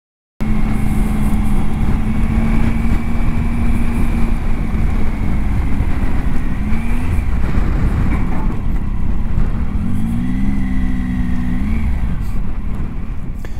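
Triumph Tiger's three-cylinder engine running under way on a gravel track, heard from a handlebar camera with heavy wind and road rumble. The engine note holds steady, rises briefly a little after halfway, and climbs again near the end.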